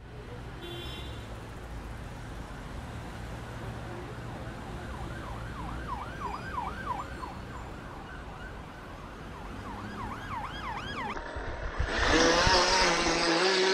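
Over a low hum, a siren-like warble rises and falls in repeated sweeps. About twelve seconds in it gives way to a much louder, steady whine that slowly climbs in pitch, with a rushing noise: a radio-controlled boat's electric motor running.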